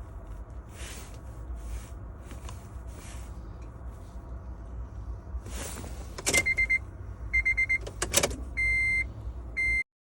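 Electronic beeps from key-programming equipment or the car: a quick run of short beeps about six seconds in, another run a second later, then one longer beep and a short one, with a couple of sharp clicks among them. A steady low rumble runs underneath until the sound cuts off abruptly near the end.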